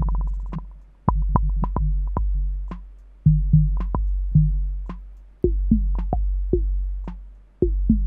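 Drum-machine beat run through an Elektron Analog Heat MKII, its resonant analog filter modulated by the LFO so that a filter tone pulses and jumps in pitch over the beat. The tone pulses rapidly near the start, then turns into short falling blips about halfway through as the LFO settings are changed.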